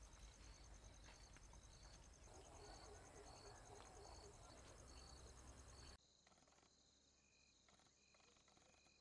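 Near silence: faint rural ambience with crickets chirping in a steady, regular pulse. About six seconds in it drops even quieter, leaving a few faint short chirps.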